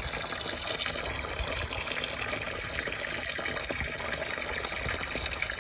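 Milky, soapy flush water draining from a truck radiator's bottom drain plug and splashing onto the pavement in a steady stream.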